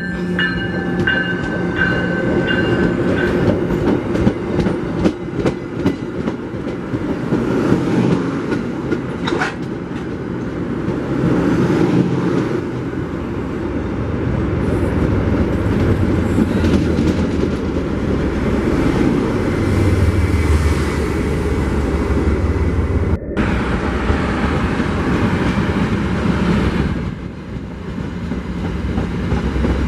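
MBTA commuter rail train passing close by: a chord horn sounding as it arrives, cutting off about three seconds in, then the steady rumble and hiss of the passing coaches with repeated clicking of wheels over rail joints. A deeper engine drone swells in the second half. Near the end the sound switches to another passing train.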